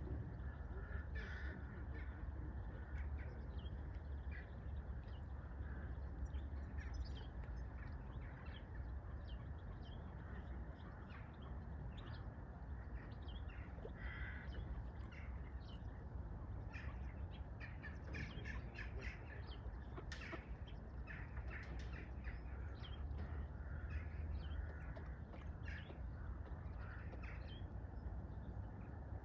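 Birds calling before sunrise: many short, scattered calls, busiest in the second half, over a steady low rumble.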